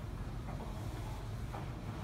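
Steady low rumble of commercial laundrette washing machines running, with a couple of faint knocks.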